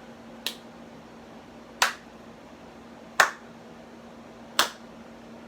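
Four sharp snapping clicks, evenly spaced about a second and a half apart, over a steady low hum.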